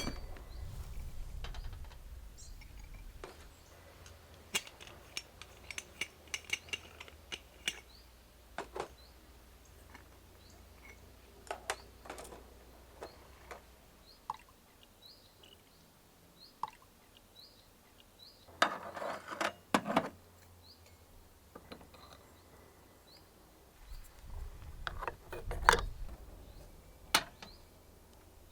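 Cookware and camping gear being handled: scattered light clinks and knocks, with two busier spells of clattering about two-thirds of the way in and near the end.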